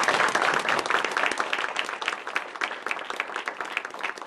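Audience applauding, loudest at first and thinning gradually toward the end.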